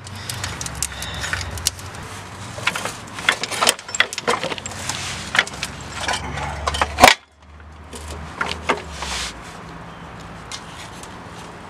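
Metal clinks and knocks from hand tools and loose parts being handled under a car during transmission removal, scattered and irregular, with one sharp loud knock about seven seconds in.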